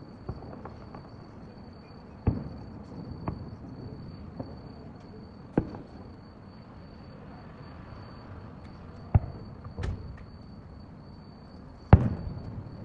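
Fireworks shells bursting: about half a dozen sharp bangs at uneven intervals, each trailing off in a low rumble, the loudest near the end.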